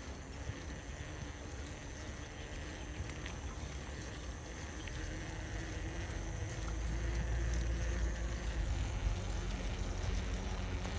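Outdoor ambience: a low rumble that grows louder about six seconds in, over a steady faint high hiss.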